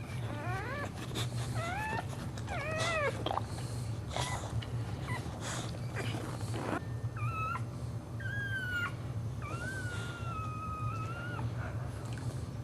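Dog whining: a run of short, high cries that rise and fall, then a few longer drawn-out whines in the second half, over a steady low hum.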